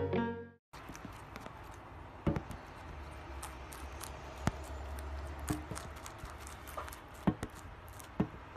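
Rabbit chewing a sprig of celery: a quick, irregular run of small crisp crunches and clicks, with a few louder snaps.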